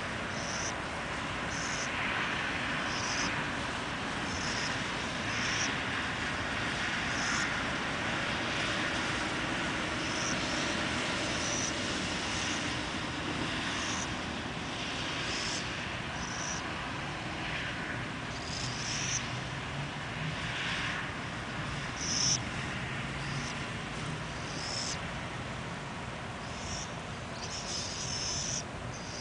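Steady engine noise of distant traffic or aircraft, swelling for a few seconds past the middle, with short high-pitched chirps repeating every second or two.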